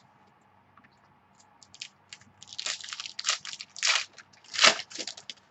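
Crinkling plastic packaging of a baseball card pack being handled and torn open, an irregular run of crackles loudest near the end.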